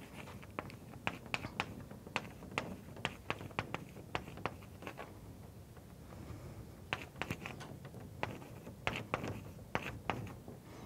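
Chalk writing on a blackboard: sharp taps and short scratches of the chalk in irregular runs, with a quieter pause about halfway through.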